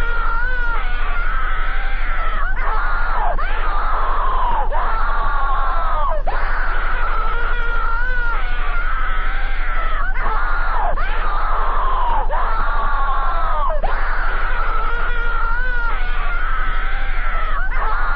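A high, squeaky Mickey Mouse-style cartoon voice screaming on and on, broken by short breaks every second or two. A steady low hum runs underneath.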